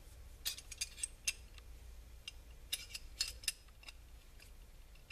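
Small steel open-end wrenches clicking against a brass fuel-valve fitting from a Coleman liquid-fuel stove as a nut is turned down and tightened: a scatter of light metallic clicks, bunched about half a second in and again around three seconds in.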